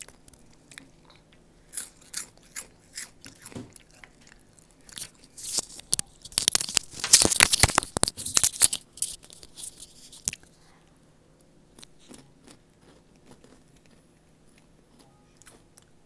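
Crunchy spicy snack chips being bitten and chewed close to the microphone: scattered crisp crunches at first, a dense loud run of crunching in the middle, then quieter chewing toward the end.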